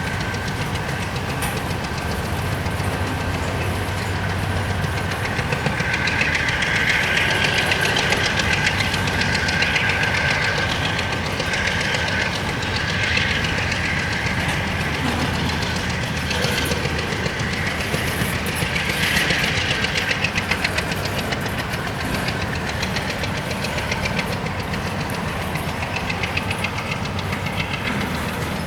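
CSX freight train rolling past, its steel wheels clicking over the rail joints, with a thin steady high-pitched squeal from the wheels on the rail that swells louder now and then.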